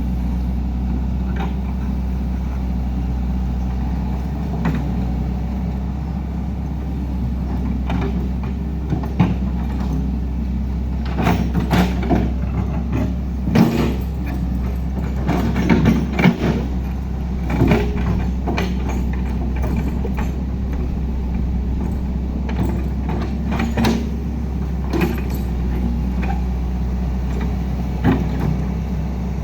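Heavy diesel machinery running steadily, with scattered clanks and knocks throughout.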